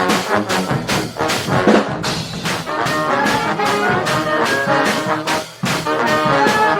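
Brass band playing live: trombones and trumpets with drums keeping a steady beat. The first two seconds are punchy, drum-led playing; after that come held brass chords, with a brief break about five and a half seconds in.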